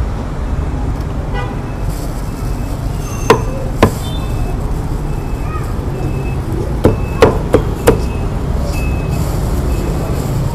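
Cleaver chopping roast meat on a thick round wooden chopping block: six sharp chops, two about three seconds in and four in quick succession around seven seconds in, over a steady low background rumble.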